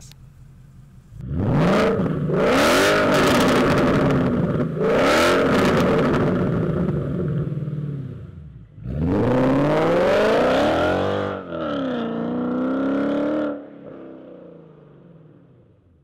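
Ford Mustang GT's 5.0-litre V8, fitted with headers, a 200-cell sports catalyst and a 3-inch valved exhaust with the exhaust flaps open, revved loudly from idle. There are three long pulls, each rising in pitch and held before dropping, and the engine settles back to idle near the end.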